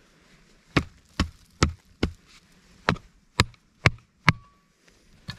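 Hand pick with a wooden handle striking into stony soil to dig out a hole: nine sharp blows, about two a second, with a short pause near the middle.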